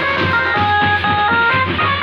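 Background music: a melody of held notes changing every fraction of a second, over a steady beat.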